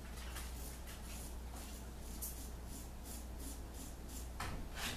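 Red Imp Wedge 132 straight razor scraping through lathered stubble in short strokes, a faint dry rasp, with one louder stroke near the end. The owner suspects the edge may be rolled and in need of a touch-up.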